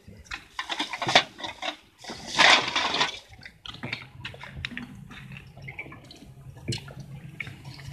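Water splashing and sloshing in irregular bursts, the loudest about two and a half seconds in, then a low steady hum from about four seconds in.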